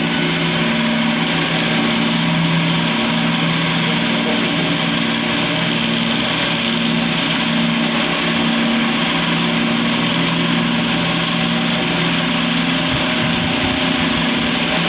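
Jumbo cotton candy machine running steadily: its motor-driven spinning head gives a constant hum, over the steady hiss of the gas burner heating the cast-iron head.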